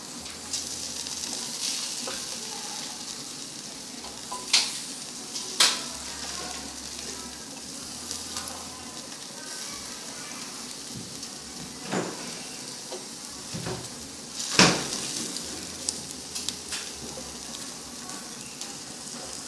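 Marinated pork ribs sizzling steadily on the wire rack of an electric grill, with a few sharp clicks as wooden chopsticks knock the rack while the pieces are turned; the loudest click comes about three-quarters of the way through.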